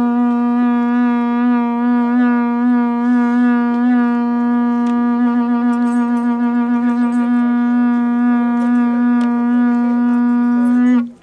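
A long curved end-blown horn sounding one long, steady note with many overtones. It wavers slightly about halfway through, then bends down in pitch and cuts off near the end.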